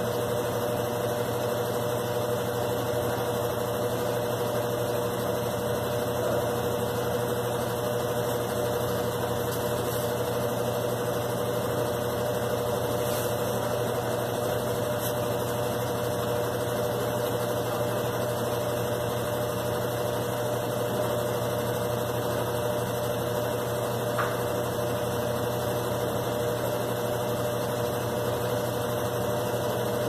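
Consul CWG12 top-load washing machine in its spin cycle: the motor and spinning basket make a steady hum with a constant mid-pitched whine.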